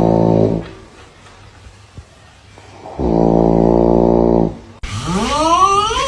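Snoring: a loud, steady, buzzing snore ends in the first second, and a second one lasts about a second and a half, halfway through. Near the end a different sound starts abruptly and rises steadily in pitch.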